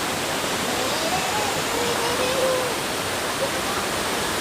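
Steady rushing of a mountain valley stream, with faint distant voices wavering over it about a second in.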